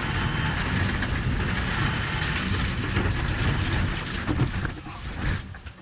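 In-cabin sound of a Subaru WRX STI rally car leaving the road on a gravel stage: engine, gravel spatter and a string of knocks and bangs. The noise dies away in the last second as the car comes to rest.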